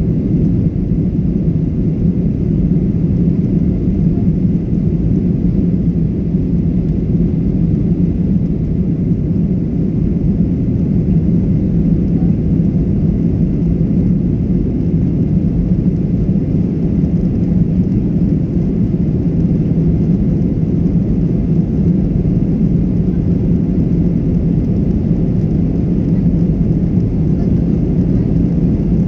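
Jet airliner cabin noise after takeoff: a loud, steady engine and airflow rumble that holds level throughout.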